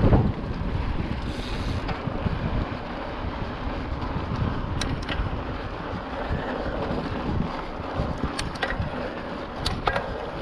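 Wind buffeting the microphone over a steady low rumble, with several short sharp clicks in the second half.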